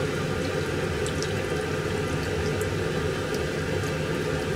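Soup being ladled from a pot into a bowl: liquid sloshing and a few faint clinks of the metal ladle, over a steady rushing background noise.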